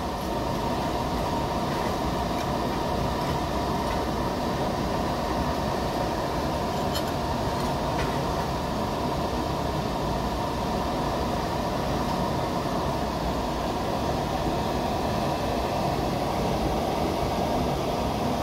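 Steady machine noise: an even rushing drone with a constant hum, with no change in level.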